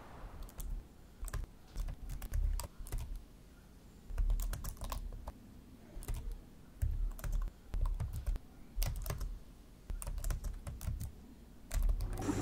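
Typing on a laptop keyboard: irregular bursts of key clicks and soft key thumps, with short pauses between the bursts.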